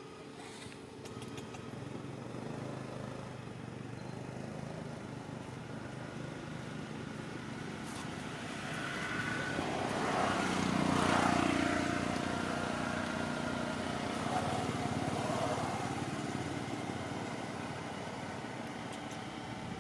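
A motor vehicle passing, its engine noise swelling to a peak about halfway through and then fading, over a steady outdoor background hum.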